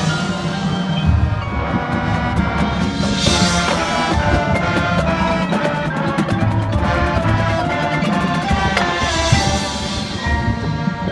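High school marching band playing its field show: brass playing sustained chords over a drumline and bass drums, with pitched percussion hits.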